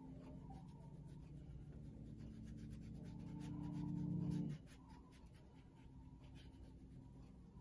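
Paintbrush scrubbing acrylic paint onto heavy watercolor paper: a run of faint, dry, scratchy strokes. Under it a low steady hum swells and then cuts off suddenly about halfway through.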